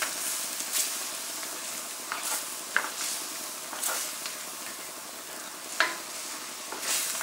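Chicken curry sizzling in a cast-iron wok while a plastic spatula stirs and scrapes through the sauce. A few sharp clicks of the spatula against the pan come out above the hiss, the loudest about three seconds in and just before six seconds.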